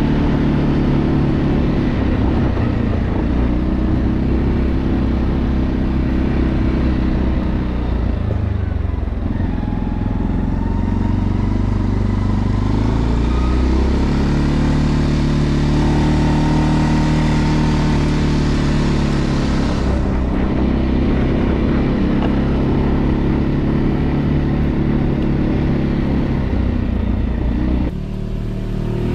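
Segway Snarler AT6 L ATV's 570 cc single-cylinder four-stroke engine running loud and close while the quad is ridden along a dirt trail. Its pitch rises and falls with the throttle. The sound drops a little about a second before the end.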